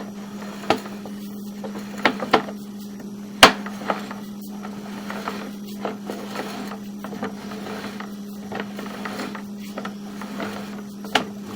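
A steady low electrical hum at one pitch, with scattered sharp clicks and knocks of equipment being handled during a sewer camera inspection. The loudest knock comes about three and a half seconds in, and two more come near the end.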